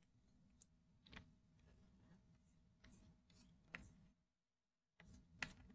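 Near silence with a few faint taps and clicks of fingertips on an iPhone 11's glass screen as it is handled and tested. The sound drops to dead silence for about a second near the end.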